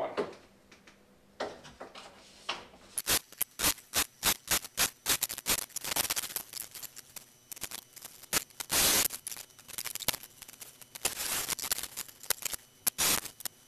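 Hand work on thin wooden strips at a workbench: a long run of sharp, irregular taps and clicks, with a brief scraping rush about nine seconds in, as one strip is fastened to the other to make a T-section.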